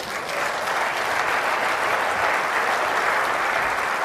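Audience applauding, building within the first half-second and then holding steady.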